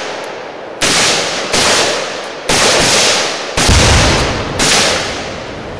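Rifle fire at tannerite-packed pumpkin targets: five sharp shots or blasts about a second apart, each with a long echoing tail. The one near four seconds in is the heaviest and deepest.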